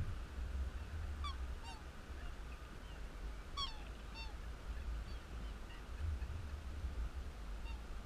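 Black swans calling: short, bugling honks, some falling in pitch, a pair about a second and a half in, another pair around four seconds, and a faint one near the end. A low wind rumble on the microphone runs underneath.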